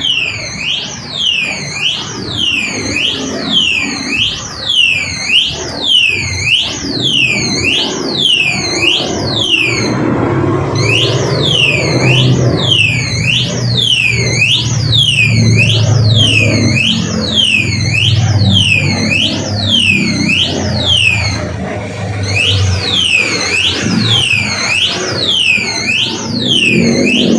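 Motorcycle alarm sounding: a shrill tone swooping down and back up about twice a second, over and over, breaking off briefly twice. A low street rumble runs beneath it.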